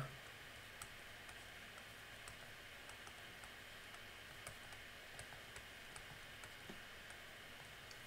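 Faint, irregular clicks and taps of a stylus writing on a tablet screen, over a low hiss of room tone.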